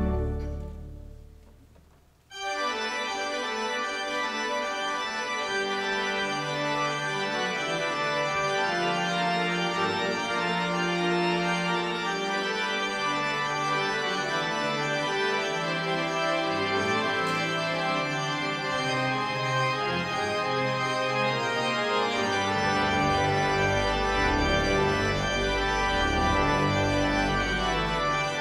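Organ music: a held chord dies away over the first two seconds, then the organ starts a postlude of sustained chords, with deep pedal bass notes coming in near the end.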